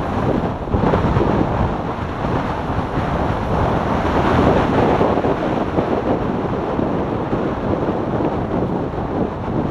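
Riding noise of a motorcycle at road speed, dominated by wind buffeting the microphone: a steady, dense rushing rumble.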